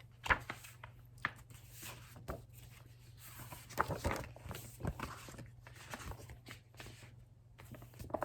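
Scattered soft taps and rustles of a paper picture book being handled, over a low steady hum.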